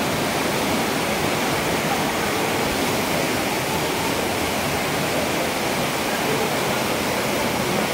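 Floodwater rushing down a street as a fast, churning torrent: a steady, loud rush of water with no breaks.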